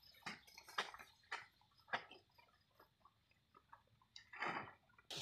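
Faint, scattered knocks and rustles of sugarcane stalks being handled and loaded onto a truck. There are several sharp knocks in the first two seconds and a longer rustle about four and a half seconds in.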